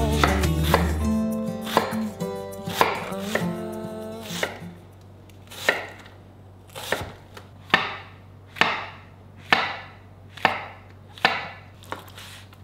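Santoku knife cutting through onion and raw chicken down onto a cutting board: single sharp knocks about one a second. Guitar music fades out during the first few seconds.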